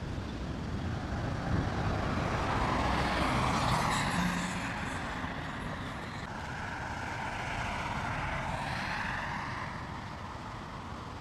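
Road traffic going by: two vehicles pass one after the other, the first louder, peaking a few seconds in, the second about five seconds later.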